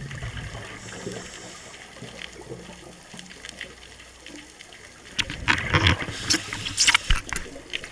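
Underwater ambience with a scuba diver's exhaled bubbles from the regulator: a low wash of water noise, then a loud run of gurgling, crackling bubble bursts from about five seconds in until near the end.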